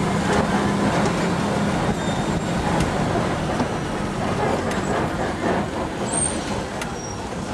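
Open-sided safari truck driving along a rough dirt track. Its engine hums low and fades about two seconds in, under steady road noise with scattered knocks and rattles.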